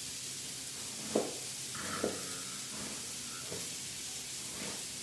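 Hamburger patties frying on a griddle, a steady sizzle, with a chef's knife slicing a red onion and knocking on a plastic cutting board, loudest about a second in and again about two seconds in.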